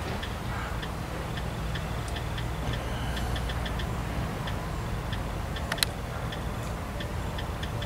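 Faint, fairly regular high ticking, about three or four ticks a second, over a steady low rumble, with one sharper click about six seconds in.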